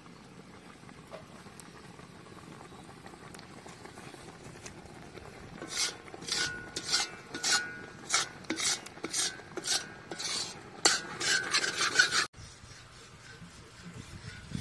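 Slotted metal spatula scraping and stirring a thick sweet coconut filling in an iron kadai, about two strokes a second, starting about six seconds in and cutting off abruptly near the end. Before the stirring there is only a low steady hiss.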